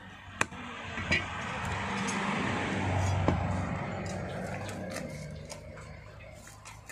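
A passing vehicle's noise swells and fades, with a few sharp taps of a cleaver on a wooden chopping block.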